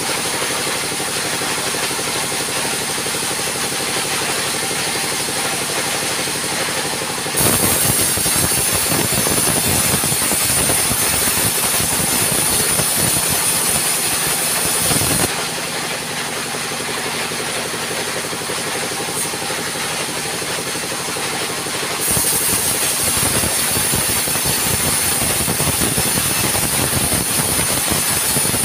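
Sawmill band saw running with a steady mechanical drone, then ripping lengthwise through a log twice. Each cut is louder and noisier, the blade going through the wood: the first from about seven to fifteen seconds in, the second from about twenty-two seconds on.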